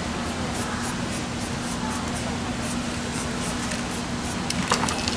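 Aerosol spray-paint can hissing in short bursts as paint is sprayed over a paper mask, against a steady low hum.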